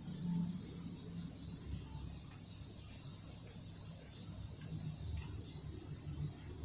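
Cicadas singing: a high, pulsing drone that repeats several times a second, over a low rumble.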